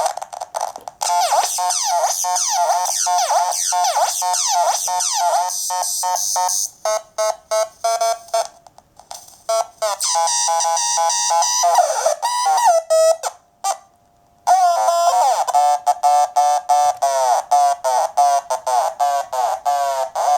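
PoodleGroomer (PG-13) Eurorack drum synth module running on its own, with no audio input, played by a step sequencer's gates. It gives a rapid pattern of short, buzzy synth notes, many with a quick downward sweep. The pattern drops out briefly twice.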